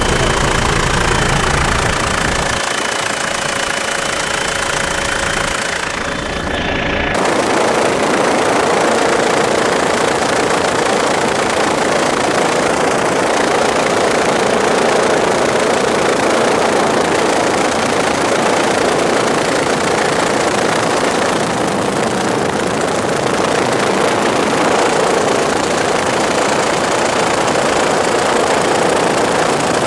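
Helicopter heard from inside the cabin in flight: a loud, steady rush of turbine and rotor noise. The sound shifts abruptly about seven seconds in, then runs on evenly.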